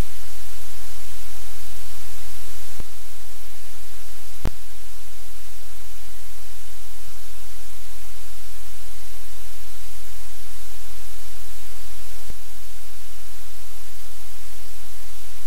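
Steady loud hiss with a low hum underneath, the noise floor of a live-cam microphone. It is broken by three sharp clicks, the loudest about four and a half seconds in.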